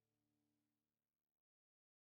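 Near silence: the last faint tail of music fades away and cuts to total silence about one and a half seconds in.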